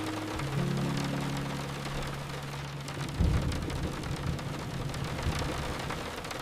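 Heavy rain falling steadily, with a sudden low rumble of thunder about three seconds in. Soft sustained music notes sound under the rain in the first half.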